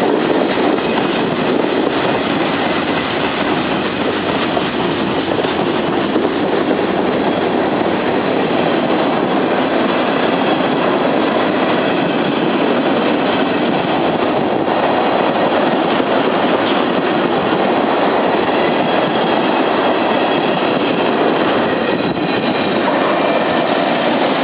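CSX mixed freight train rolling past, its cars making a loud, steady rumble on the rails.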